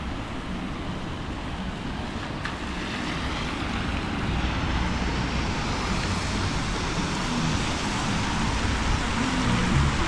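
Wind and rain in a town street: a steady hiss that swells slowly, with gusts buffeting the microphone near the end.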